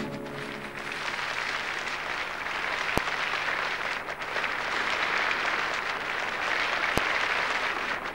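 Audience applauding, a steady wash of clapping, with two short clicks about three and seven seconds in.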